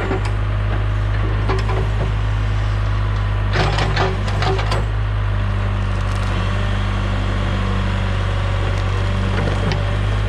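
Wood cracking and splintering over a steadily running engine, most likely the John Deere 410 backhoe's diesel, with the loudest snapping about four seconds in and more near the end.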